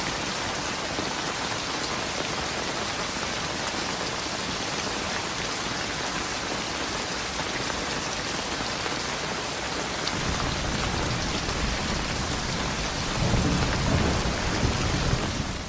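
Heavy rain falling steadily on a road. A low rumble of thunder comes in about two-thirds of the way through and swells louder near the end.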